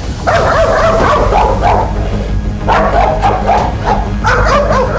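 A leash-reactive dog barking in three long volleys as it lunges on its leash, over background music with a steady low beat.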